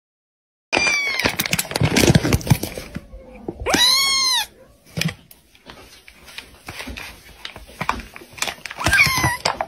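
A kitten meowing three times in high, arching calls, the middle one the longest and loudest, over the crackly crinkling of the foil bag it sits in; the sound starts about a second in.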